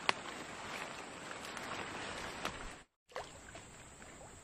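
Steady outdoor background hiss with a few sharp clicks, the loudest just after the start. About three seconds in the sound drops out for a moment, then resumes quieter, with another click.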